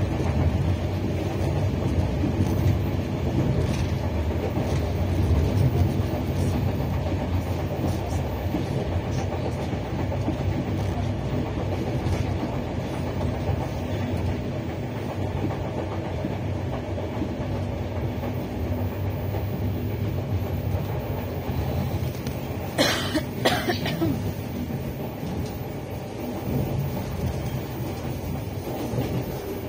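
Passenger train running along the line, heard from inside the carriage: a steady low rumble of wheels on rail with a faint clickety-clack, and two sharp knocks in quick succession about three-quarters of the way through.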